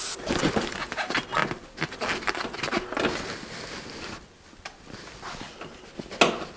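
Hands pushing and kneading a deflated knobby bicycle tire on its rim, a run of irregular rubbing and clicking scrapes as the tire is loosened to straighten a crooked valve stem. The hiss of air let out of the tube cuts off right at the start.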